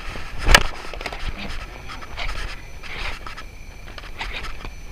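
A person breathing hard close to the microphone in repeated breaths, with one sharp click about half a second in.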